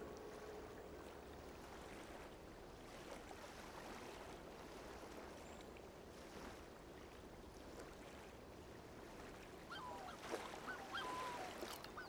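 Faint, steady rush of flowing water, with a few short bird calls about ten seconds in.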